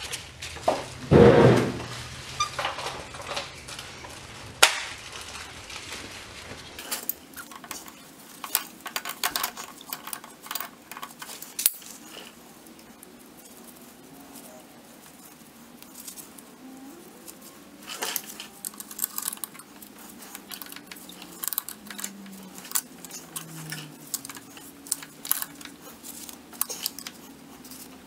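Scattered light metallic clinks and rattles of an ATV's roller drive chain and master link being handled and fitted by hand, with one louder thump about a second in.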